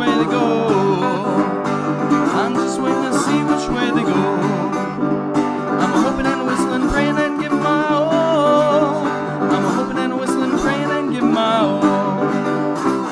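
Guitar music: plucked chords carrying the closing bars of a folk-rock song, with a wavering melody line held above them.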